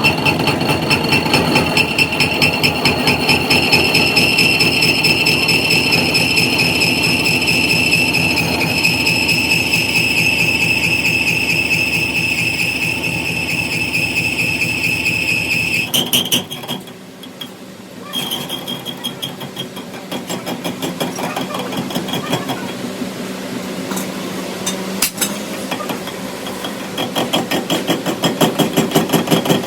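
Workshop machinery running with a fast, even train of metallic knocks and a steady high whine. It drops away for a moment about sixteen seconds in, then resumes at a different pitch.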